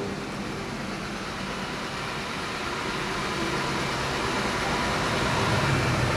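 Ecovacs Deebot T9 robot vacuum running its cleaning pass: a steady whir of its suction fan and brushes, slowly getting louder.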